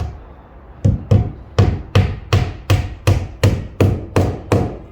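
Hammer driving a nail with about eleven quick, even blows at roughly three a second, starting about a second in.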